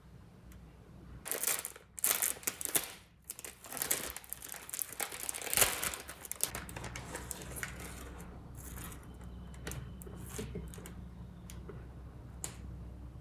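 Plastic instant-noodle packet crinkling loudly as it is torn open and the noodle block is pulled out. After that come lighter, scattered crinkles as the block and sauce sachets are handled.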